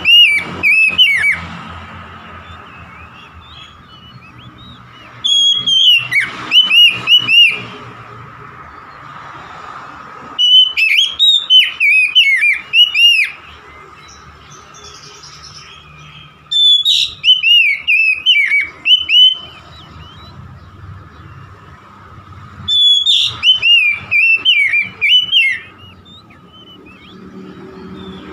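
Oriental magpie-robin in full song. Loud phrases of sliding whistled notes, each two to three seconds long, come about every five to six seconds with short pauses between.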